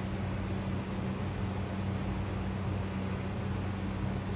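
Steady low electrical-sounding hum with a constant hiss underneath; nothing else happens.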